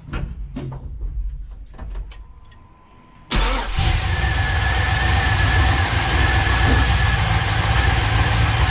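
GM LS-series V8 fitted with individual throttle bodies being cranked on the starter. About three seconds in it catches and fires, then runs at a loud, steady idle with a thin high whine over it.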